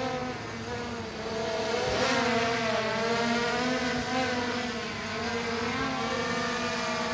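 Holy Stone HS700E quadcopter buzzing in flight, a steady propeller whine whose pitch wavers up and down as the motors adjust their speed. It gets louder and hissier about two seconds in.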